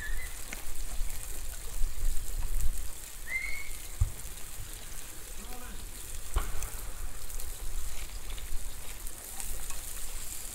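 Scallops cooking in butter in their own shells on hot coals, sizzling with a steady crackling hiss.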